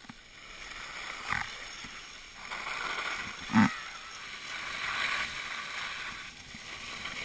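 Skis sliding and scraping over packed snow, a hissing noise that swells and fades in waves. A sharp thump about three and a half seconds in is the loudest sound, with a smaller knock about a second and a half in.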